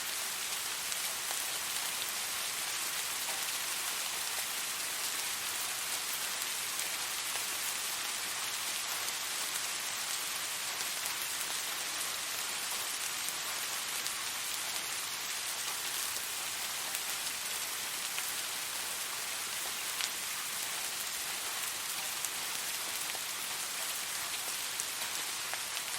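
Steady rain falling, an even dense hiss with fine scattered drop ticks.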